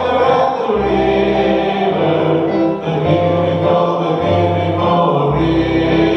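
Congregational hymn singing: many voices singing together with a small worship band, guitar among it, playing steady bass notes that change about once a second.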